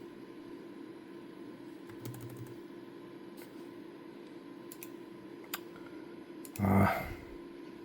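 Scattered computer keyboard clicks over a steady electrical hum, with one short, louder knock near the end.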